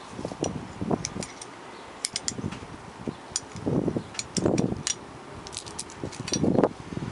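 Small metal hardware (bolt, nut and washers) and a wrench clinking and jangling against a metal steering arm as they are handled, in irregular clusters of short clicks with handling rustle between.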